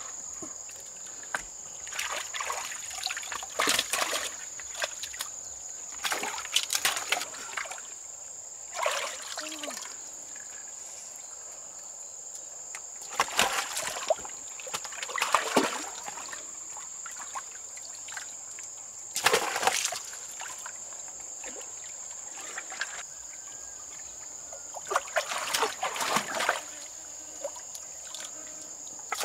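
Water splashing and sloshing in shallow water, in short irregular bursts every few seconds, over a steady high-pitched whine.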